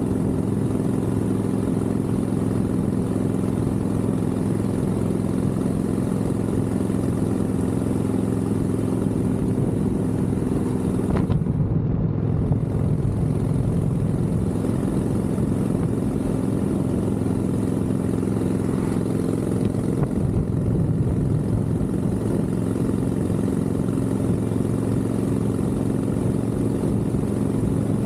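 Harley-Davidson Sportster 1200's air-cooled V-twin engine running steadily as the motorcycle cruises along a road, with road and wind noise. About eleven seconds in the engine note shifts, as with a change of throttle or gear.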